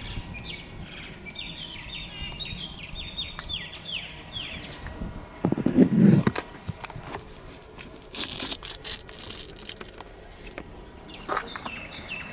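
A small bird chirping in a quick run of short falling notes, then a single loud low thump about six seconds in, followed by scattered clicks and rustling.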